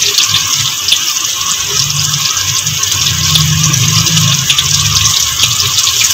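Besan-battered green chillies deep-frying in hot oil: a steady sizzle with many small crackles.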